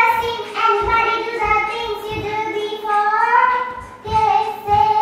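A high voice singing a melody in long held notes that glide from one pitch to the next.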